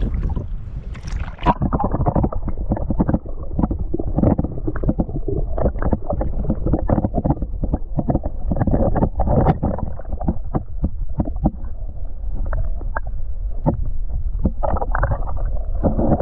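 Shallow water splashing and sloshing in quick, irregular bursts over a steady low rumble.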